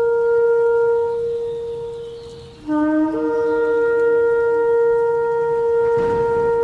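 Shofar (ram's horn) blown in long held blasts. The first fades out about two and a half seconds in; the next starts on a short lower note, breaks up to a higher one and holds. There is a brief rushing noise about six seconds in.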